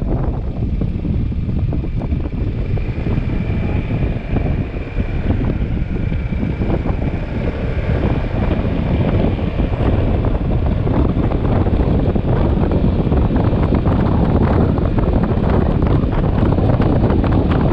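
Wind buffeting the microphone of a moving motorcycle, a heavy rumbling rush over the ride noise, growing louder after about ten seconds. A faint steady high whine sits in it for a few seconds early in the stretch.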